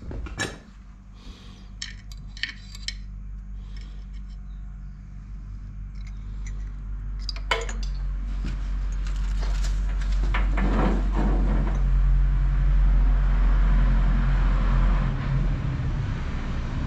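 Steel gearbox parts of a walking tractor clinking and knocking as they are handled and taken apart. A low steady drone builds up from about six seconds in and stays loud to the end.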